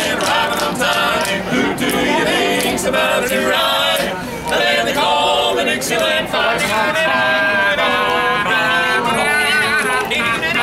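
A male barbershop quartet singing a cappella in close harmony, several voices sustained together.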